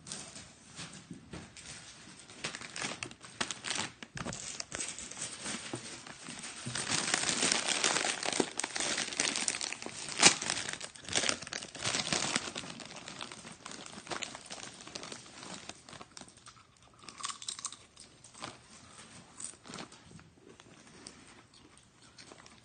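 Crinkling and rustling of a foil potato chip bag being opened and handled, with chips being eaten. It is loudest in a long stretch of dense crackling from about a third of the way in to past the middle, with one sharp snap in it.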